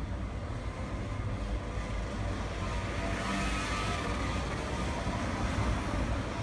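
Street traffic passing close: a motor scooter goes by about three to four seconds in, followed by a car, over a steady traffic rumble.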